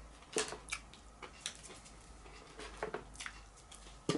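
A few short, faint clicks and rustles of small objects being handled at a table, spread unevenly.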